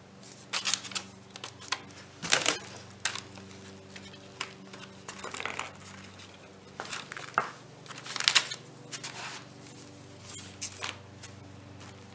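Paper and cardboard crinkling and scuffing under sandalled feet as a person steps on the corners of a wooden frame laid on cardboard, in a string of irregular rustles. A faint steady hum runs underneath.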